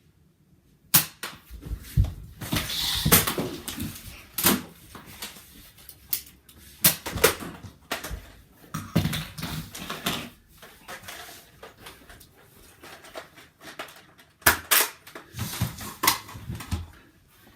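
Scattered sharp knocks and thumps from a Nerf foam-dart fight in a small room, with a stretch of rustling about three seconds in.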